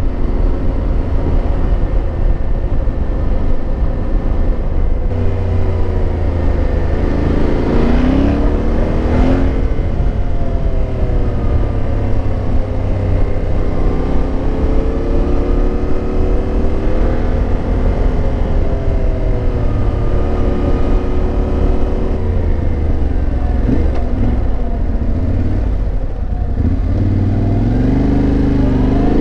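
Motorcycle engine under way. Its pitch climbs steeply about seven to nine seconds in, then drops and holds at a cruising note with small rises and falls, and climbs again near the end. A steady low rumble runs underneath.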